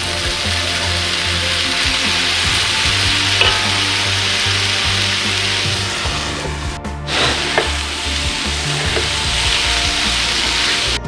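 Sausage frying in a pan, a loud steady sizzle, with a short break about seven seconds in.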